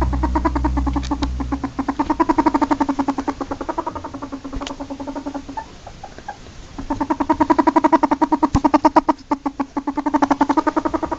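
Ferret dooking: a fast run of soft clucking chuckles, in two long bouts with a short pause in the middle. This is the chatter ferrets make when excited or playing. A steady low hum underneath fades out about a second and a half in.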